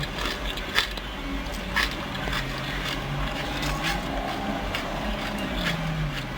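Eating crunchy chips, with two sharp crunches about one and two seconds in, over the low steady rumble inside a car.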